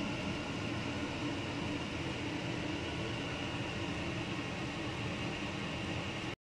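A steady droning hum with hiss, unchanging throughout, that cuts out to silence for a moment near the end.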